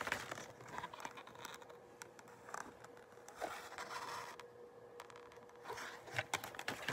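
Faint rustling and scraping of a picture book being handled, held up and moved about, its paper pages brushing and a few soft taps scattered through.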